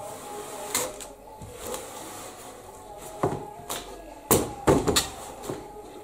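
Cardboard box handled with gloved hands: rustling and scraping of the cardboard with several sharp knocks, the loudest a quick cluster a little past the middle.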